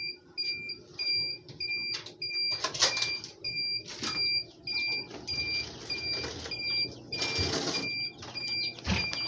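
Electronic alarm of a cabinet egg incubator beeping steadily, short high beeps about twice a second. The metal door latch clatters as it is worked, and the door is pulled open with a louder rattle in the second half.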